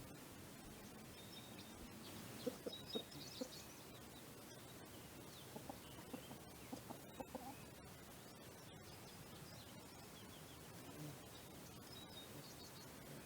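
Faint outdoor bird sounds: scattered short high chirps, with a few soft low clucks a few seconds in.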